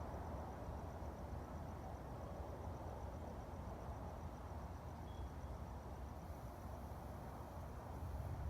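Quiet night-time ambience: a steady low rumble and hiss, with a faint, rapid, high-pitched pulsing like an insect trill.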